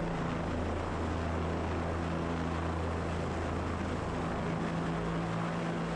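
Helicopter running steadily, heard from inside the cockpit as it hovers to dip its firefighting water bucket: a steady hiss with a low hum underneath.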